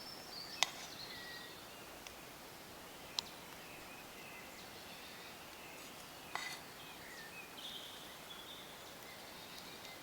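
Quiet outdoor ambience: scattered short bird chirps over a steady hiss, broken by three sharp clicks, the first and loudest under a second in.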